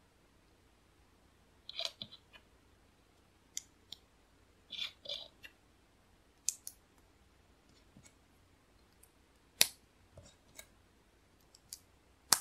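Small plastic LEGO bricks and plates clicking as they are pressed together and handled, in irregular single clicks and short clusters, the loudest about two-thirds through and another right at the end.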